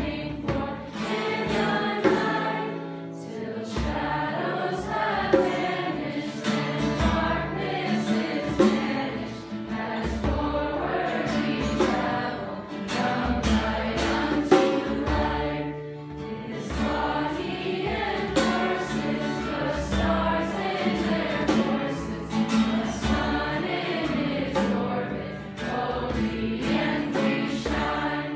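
A group of young voices singing a hymn together, phrase by phrase with short breaks for breath.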